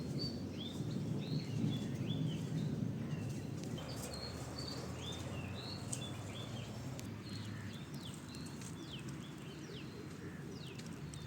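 Several birds chirping: repeated short arching calls, joined about seven seconds in by quick falling notes, over a steady low rumble.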